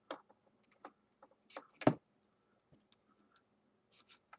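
Small plastic clicks and scratching as a charging-cable plug is handled and pushed into an iPad's port, with one sharper click just under two seconds in.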